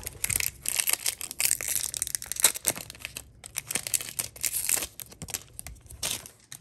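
Plastic foil wrapper of a Pokémon booster pack crinkling loudly and irregularly as it is handled and torn open.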